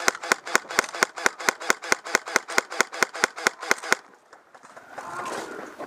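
Running footsteps, quick and evenly paced at about five steps a second, that stop about four seconds in. Faint voices follow near the end.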